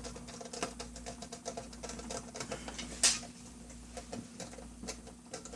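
Small irregular clicks and taps of laptop parts being handled and fitted by hand, with a sharper click about three seconds in, over a faint steady hum.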